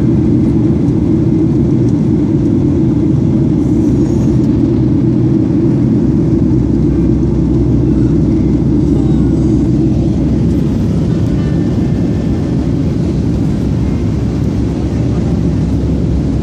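Steady, deep drone of an airliner's engines and rushing air, heard from inside the passenger cabin in flight.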